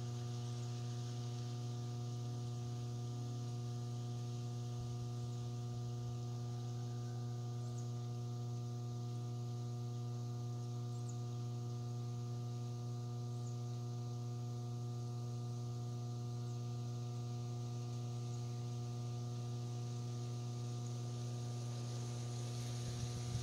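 Steady electrical hum with a stack of evenly spaced overtones and a high hiss underneath, unchanging throughout.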